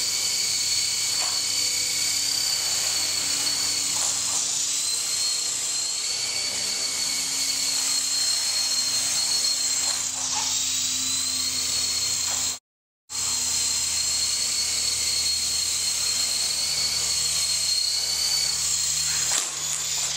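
Small RC helicopter hovering, its motor and newly fitted metal rotor head and blades giving a steady high-pitched whine that wavers slightly in pitch as the throttle changes. The sound cuts out completely for a moment about 13 seconds in.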